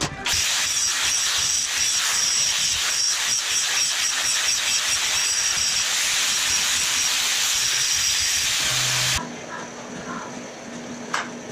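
Angle grinder running against a steel part clamped in a bench vise: a steady, loud grinding hiss with a faint high whine. It cuts off suddenly about nine seconds in, leaving a low hum and a single click near the end.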